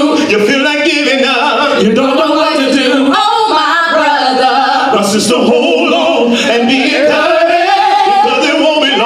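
Gospel praise team of men and women singing together into handheld microphones, several voices at once with wavering, sustained notes.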